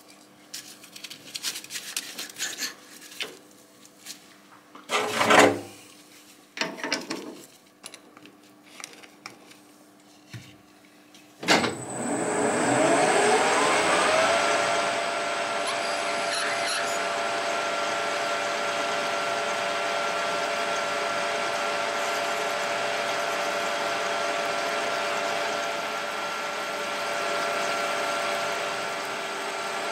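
Metal clinks and knocks of tooling being handled, then about 11 seconds in a Colchester lathe starts. Its whine rises for about three seconds as the spindle comes up to speed, then holds steady while a reamer is fed into the bore of the spinning workpiece.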